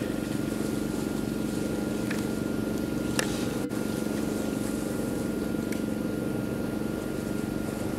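Steady low mechanical hum, engine-like, with a thin steady whine above it. A few faint clicks come through about two and three seconds in, and again near six seconds.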